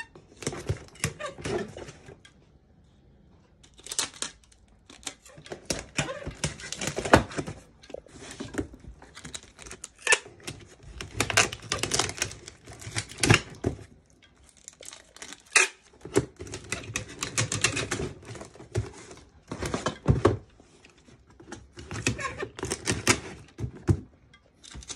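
Cardboard boxes being handled and folded, with packing tape pulled off a handheld tape gun dispenser in short tearing runs and pressed down along the box seams. The sound comes in bursts of rustling, clicks and knocks separated by brief pauses.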